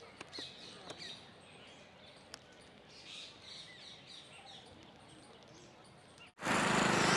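Faint, high chirping bird calls over a quiet outdoor background, with a few soft clicks. About six seconds in, the sound cuts abruptly to loud, noisy outdoor sound.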